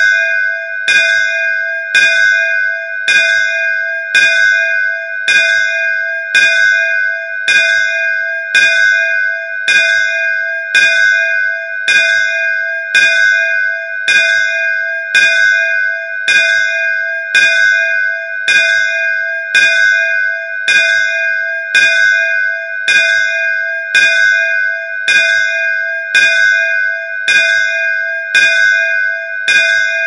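Temple bell (mandir ghanta) rung steadily, its clapper striking about once a second, each strike ringing on into the next so the bell's tone never dies away.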